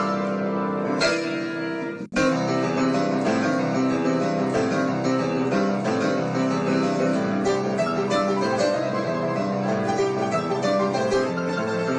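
Instrumental music led by plucked strings, which cuts out for a split second about two seconds in and then carries on.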